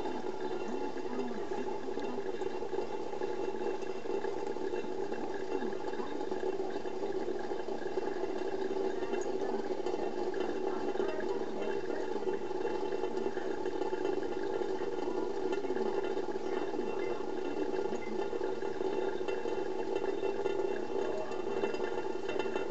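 A thin stream of tap water running steadily into a stainless steel kitchen sink.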